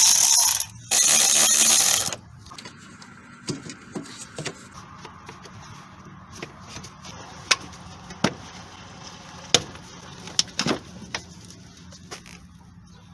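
A handheld power driver spins twice in the first two seconds, each run about a second long, backing out the 8mm clamp bolt. After that come scattered light clicks and knocks of tools and parts being handled.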